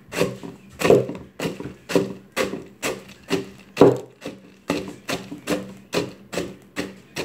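A stick-like utensil pounded repeatedly into the bottom of a plastic cup, crushing snack pieces: sharp knocks about two a second, evenly paced.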